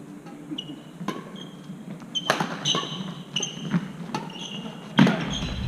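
Hammer blows on metal, a string of irregular strikes, each leaving a short, high metallic ring. A low hum comes in near the end.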